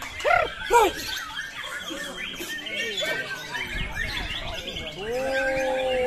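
A chorus of caged white-rumped shamas (murai batu) singing, a dense run of sharp chirps and whistled phrases. Over it come people's loud calls: two short ones near the start and one long held call from about five seconds in.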